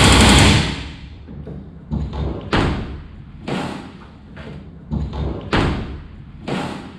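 Pneumatic rivet gun hammering a rivet into aluminum sheet, cutting off under a second in. It is followed by about seven separate short thuds and knocks, roughly one a second.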